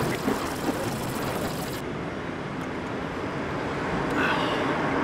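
Steady road-traffic noise with no one speaking.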